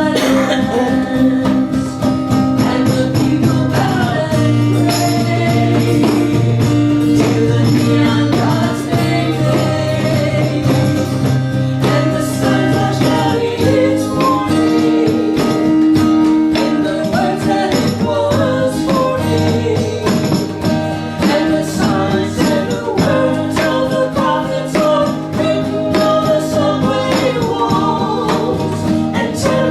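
Live music: singing with instrumental accompaniment, held notes and a steady, continuous sound.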